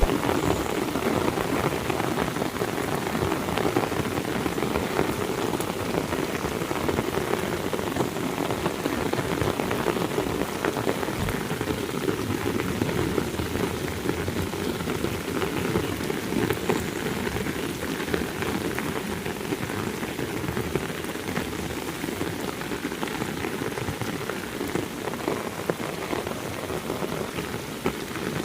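Heavy rain falling, a dense steady patter of drops on surfaces.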